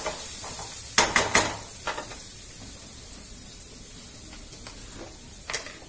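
Garlic paste sizzling steadily in oil in a kadai. A quick run of sharp utensil clinks comes about a second in, with another just after and one more near the end.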